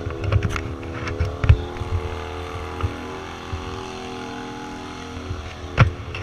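A vehicle engine running at a steady pitch, with a sharp knock near the end.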